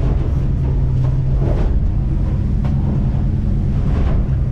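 Boat engine running at speed, a steady low drone heard from inside the wheelhouse, with water rushing past the hull and now and then a splash of spray as it runs through choppy water.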